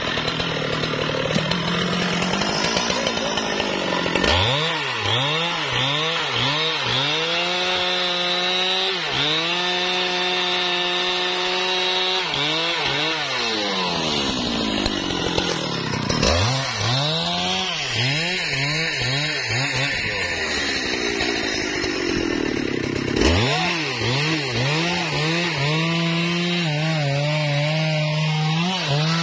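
Husqvarna 395 XP two-stroke chainsaw running hard while cutting wood. The engine speed climbs again and again and holds high for stretches, dropping off and picking back up several times.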